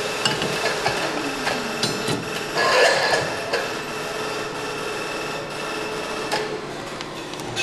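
Factory workshop sounds as a plastic-wrapped crankshaft is handled in a metal holding fixture: metal clinks and knocks with plastic film rustling, over a steady machinery hum. A louder rustling clatter comes about three seconds in.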